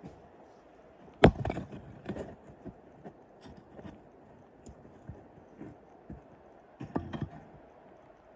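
Axe striking firewood to split it: a sharp strike about a second in, followed by a few lighter knocks, then another strike with a second quick knock near the end.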